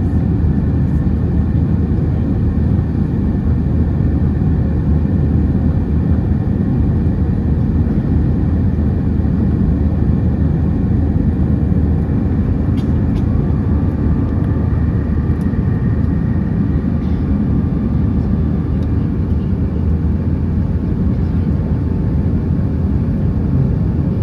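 Steady, loud cabin noise inside an Airbus A320 airliner: a deep, even rumble of the jet engines and airflow, with a few faint steady tones above it.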